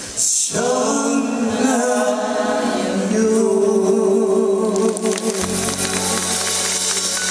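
Two male voices singing long held notes in harmony over light acoustic guitar backing in a live pop-folk performance; about five seconds in, the full band with bass and cymbals comes back in.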